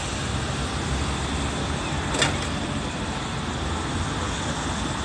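Steady road traffic at a city intersection, with vehicles running and rumbling, and one short sharp knock about two seconds in.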